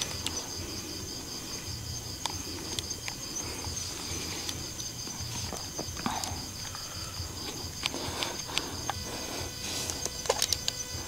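Insects chirping steadily in a high, rapidly pulsing trill, with scattered light clicks and footsteps over it.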